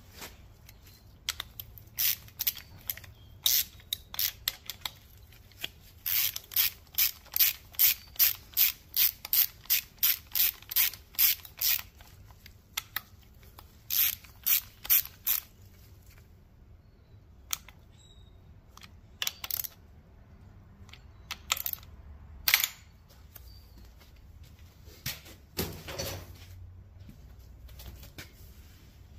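Hand ratchet clicking as it works the camshaft timing-sprocket bolts on a small-block Chevy engine. It goes in sharp clicks, an even quick run of about two or three a second through the middle, then scattered single clicks.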